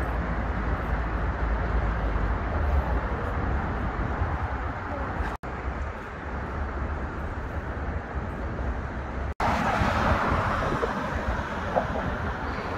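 Steady city traffic noise with a deep low rumble. The sound breaks off abruptly for an instant about five seconds in and again about nine seconds in.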